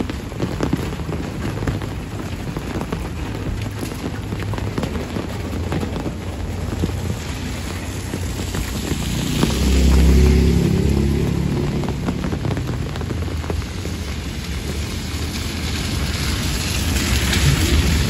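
Steady rain falling on a wet road and roofs, with many small drop patters. About halfway through, a low rumble swells and fades over a couple of seconds.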